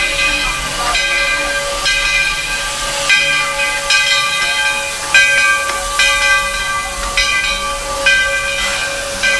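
Steam locomotive Roy O. Disney's bell ringing about once a second, each clang fading into the next, over the hiss of steam as the engine rolls slowly into the station.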